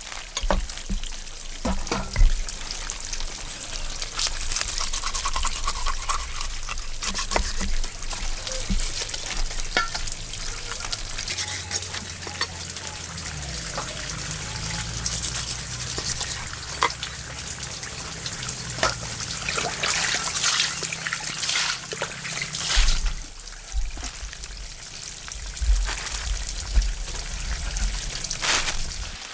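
Water splashing and trickling, with many small clicks and knocks scattered through it.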